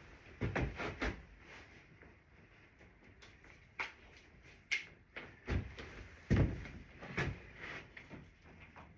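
Scattered, irregular knocks and thumps of wooden boards being handled and set in place on a workbench under construction, the heaviest about six and a half seconds in.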